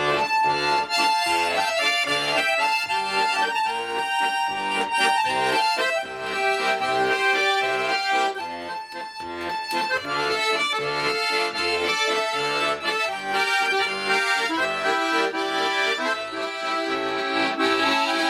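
Instrumental break of a Russian folk-style song: an accordion plays the melody over a steady bass beat.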